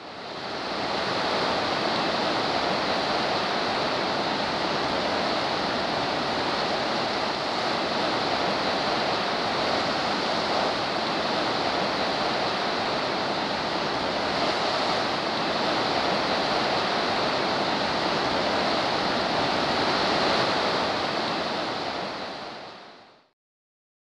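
Geyser erupting, a steady rush of splashing, boiling water and hissing steam from the vent. It fades in at the start and fades out about a second before the end.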